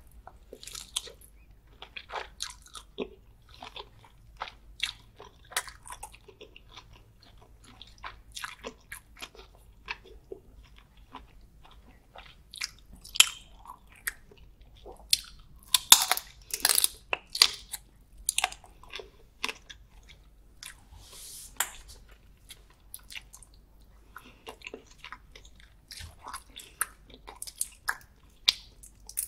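Close-miked chewing and biting of butter-garlic prawns: irregular wet, crackly mouth clicks, loudest about halfway through.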